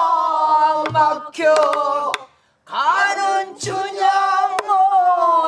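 Pansori singing by a woman leading a small group of voices, long held notes with wide vibrato, broken by a short pause in the middle. A buk barrel drum is struck about a second in and again a little past the middle.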